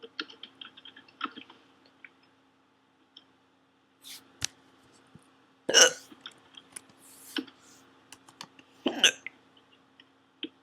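A woman hiccuping: two loud, sharp hiccups, the first a little under six seconds in and the second about nine seconds in, with small quieter clicks between them.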